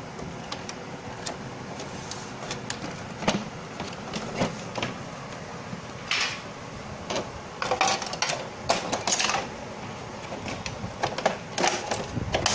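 Scattered clicks, taps and short scrapes of plastic as the opened inkjet printer's ribbon cable, carriage area and casing are handled, coming thicker and louder in the second half, over steady background noise.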